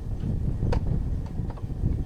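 Low rumble of wind buffeting the microphone, with a few short sharp knocks, the clearest about a second in.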